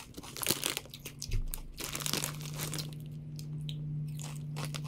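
Plastic chip bag crinkling as a hand rummages inside for crinkle-cut potato chips, with crunching near the end as a chip is bitten. A steady low hum runs underneath.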